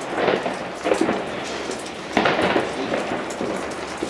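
New Year's fireworks and firecrackers going off all around: a continuous crackle with several sharper bangs, the loudest about two seconds in.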